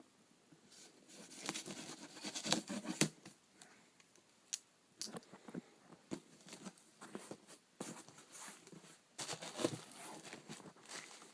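Cardboard shipping box being cut open with a dull knife: irregular scraping, tapping and short tearing rasps of the blade through packing tape and cardboard.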